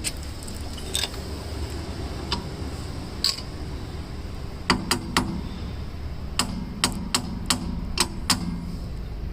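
Sharp metal clicks and taps, irregular and a dozen or so in all, most of them in the second half, over a steady low hum: small parts and tools being handled at a car's rear wheel hub as the nut lock cap and pin are fitted.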